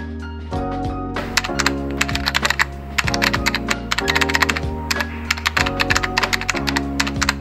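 Fast typing on a laptop keyboard: a dense run of key clicks that starts about a second in, over lo-fi background music with held chords and a steady bass.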